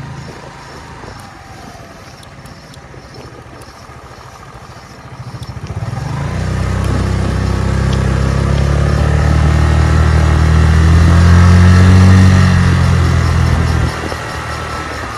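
Chinese 150cc motor scooter's engine under way at low speed, then opened up about five seconds in: the engine note climbs steadily and grows loud as it accelerates, then drops suddenly near the end as the throttle is let off. It is running well, with good pickup.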